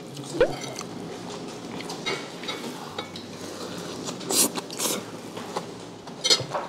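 Close-miked eating sounds: a spoon scraping food off a plate, then a mouthful taken with a couple of short wet sounds about four and five seconds in, and chewing.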